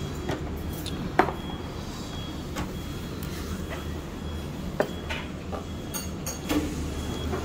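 Several light, sharp clicks of a metal spoon against a ceramic rice bowl while eating, over a steady low background hum.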